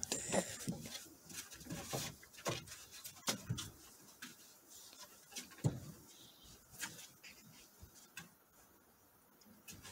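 Two Border Collie puppies play-fighting on a wooden deck: irregular scuffling, with claws clicking and scraping on the boards. It is busiest in the first few seconds and grows quieter toward the end.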